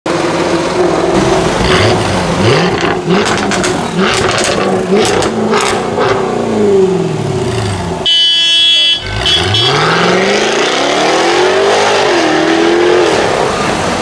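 Jaguar F-Type R's supercharged V8 exhaust revving over and over, its pitch rising and falling, with sharp cracks among the revs. After a brief break about eight seconds in, one long rev climbs and then drops back.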